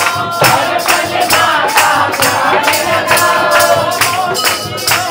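Devotional bhajan: a voice singing a wavering melody over hand percussion keeping a steady beat of about two strokes a second.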